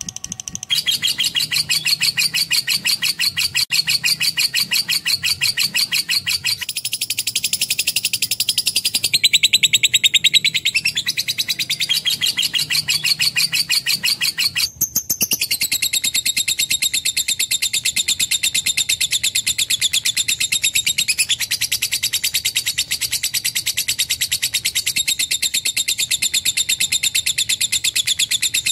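Lovebird singing: a long, rapid, unbroken stream of high chirps and chatter, breaking off briefly about halfway.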